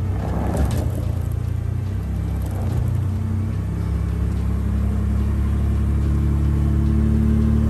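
A truck engine running steadily at low revs, growing a little louder in the second half.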